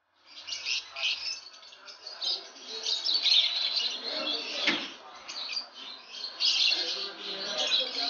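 Many caged lovebirds chirping and chattering at once, a dense stream of short, high chirps that overlap without pause.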